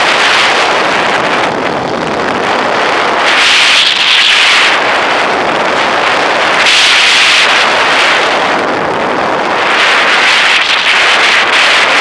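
Wind rushing over the on-board camera of a radio-controlled Duo Discus sailplane in flight. It makes a loud, steady hiss that swells and fades three times, about every three to four seconds.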